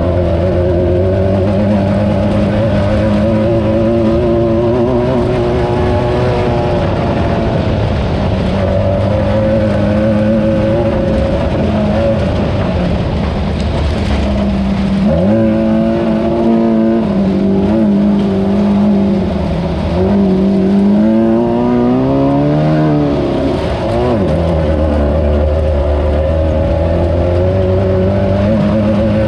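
Class 9 off-road race car's engine running hard at a steady high pitch. About halfway through, the revs drop, climb and fall several times before settling back to the same steady note.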